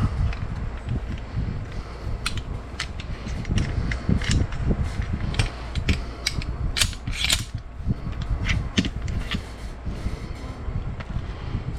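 Metal parts of an AR-style rifle being handled and taken apart: irregular metallic clicks and clacks over a low handling rumble.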